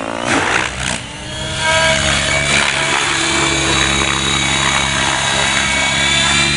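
Gaui X7 RC helicopter's electric motor and rotor whine rising in pitch from about a second in, then holding steady and high as the rotor head is brought up to high head speed.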